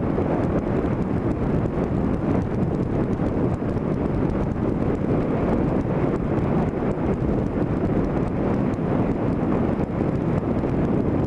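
Steady wind buffeting on the microphone over the road rumble of a vehicle driving along.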